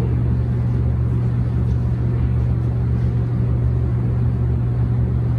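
A steady low mechanical hum that holds at an even level throughout, with no distinct knocks or other events standing out.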